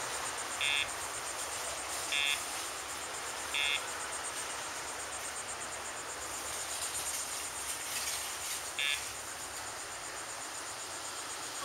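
Short electronic beeps from the dog's e-collar pager: four about a second and a half apart, then one more near the end. Under them runs a steady chorus of crickets.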